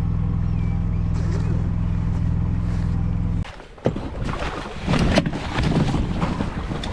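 Boat engine running with a steady low hum that cuts off abruptly about three and a half seconds in, followed by gusty wind on the microphone and water noise.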